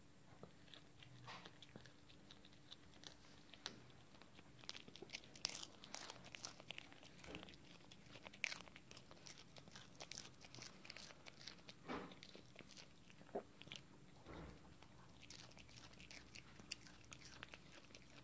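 A Chihuahua chewing a crunchy treat: faint, irregular crunches and small bites, loudest about halfway through.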